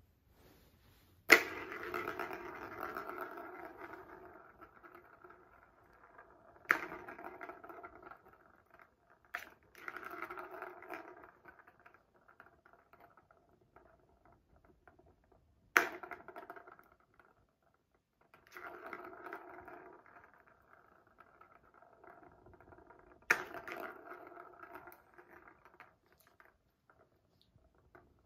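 Plastic ball rolling around the circular track of a three-tier cat track toy after being swatted: a sharp tap, then a rolling rattle that fades over a few seconds. This repeats about six times.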